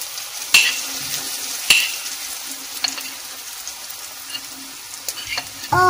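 Hot oil sizzling in a non-stick pan as a thick semolina-and-vegetable batter is poured onto the mustard-seed tempering, with a few sharp clicks, the loudest two about half a second and just under two seconds in.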